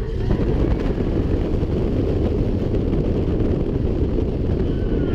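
Slinky Dog Dash roller coaster train running at speed: a steady rushing noise of wind over the microphone mixed with the rumble of the train on its track as it leans through a banked turn.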